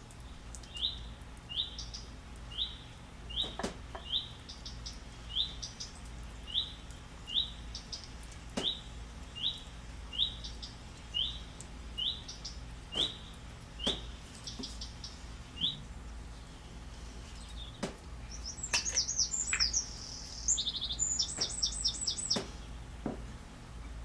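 A bird chirping: the same short rising chirp repeated about once a second, then a burst of quicker, varied twittering near the end. A few faint clicks sound here and there.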